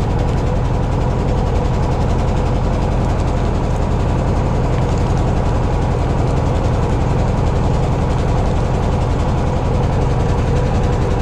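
The fishing boat's engine running at a steady pace, a low, even drone with no change in speed.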